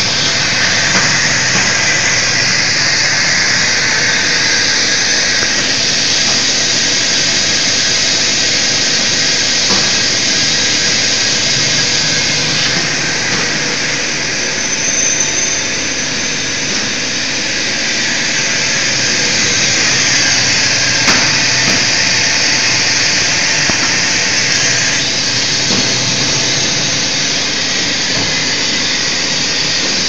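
Optical fibre cable extrusion line running: a loud, steady machine din dominated by a strong hiss, with several faint steady whining tones beneath it.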